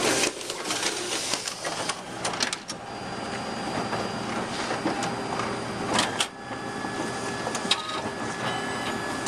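Multifunction office copier with a stapling finisher running a copy job: a steady mechanical whir of the paper feed and finisher, with several sharp clicks and clacks, the loudest about six seconds in.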